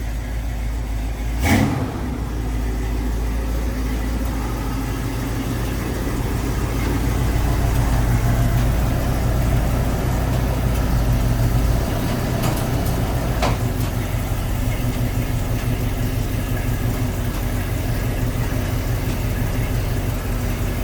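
Car engine idling with a little rumble, swelling slightly partway through, with a sharp click about a second and a half in and another later on.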